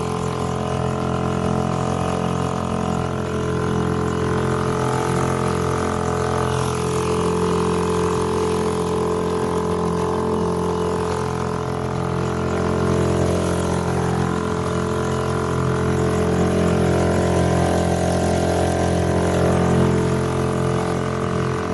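Outboard motor on a small inflatable boat running at steady trolling speed, a constant even drone, with hiss from the water and wind over it.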